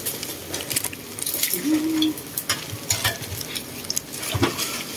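A person slurping and chewing noodles close to the microphone: a run of short smacking clicks, with a brief low hum about two seconds in.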